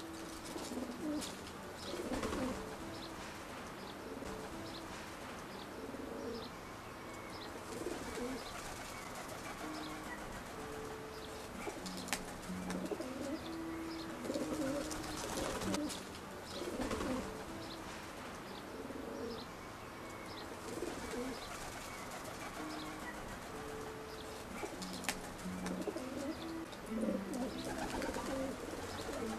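Pigeons cooing over and over in short groups of low, soft calls, with faint chirps from other birds.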